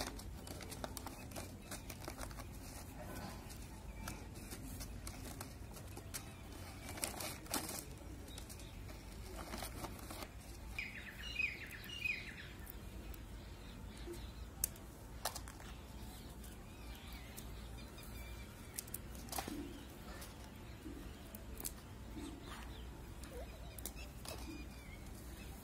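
Dry whole red chillies crackling as they are snapped in two and their stems pulled off, with a plastic packet crinkling; scattered small crackles and clicks. A bird chirps a few times about eleven seconds in.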